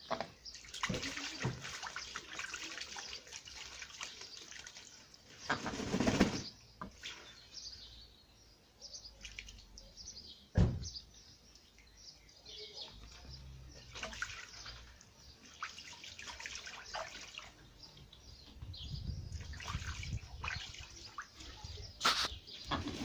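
Domestic ducks splashing as they bathe in a shallow inflatable boat of water, in irregular bouts, with one sharp knock about ten and a half seconds in.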